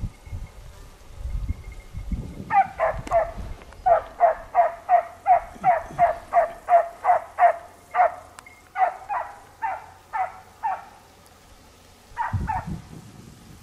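A hunting dog barking in a fast, even series of about three barks a second, giving tongue on the trail of wild boar in the scrub. The barking breaks off for a moment and comes back with two more barks near the end.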